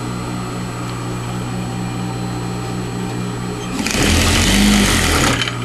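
Electric sewing machine stitching a seam, its motor humming with a regular beat of about four stitches a second. About four seconds in, a louder rushing noise lasts for about a second and a half.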